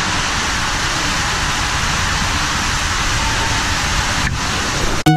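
A steady, loud rushing noise that cuts off abruptly near the end.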